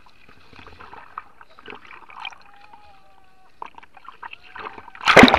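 River water slapping and splashing around a paddled raft, faint and scattered at first, then a sudden loud splash near the end.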